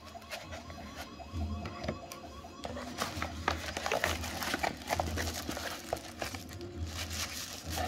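Tissue paper crinkling and cardboard packaging rustling as a doorbell camera is unpacked by hand, busiest in the middle. Under it, background television audio has a low beat pulsing about once a second.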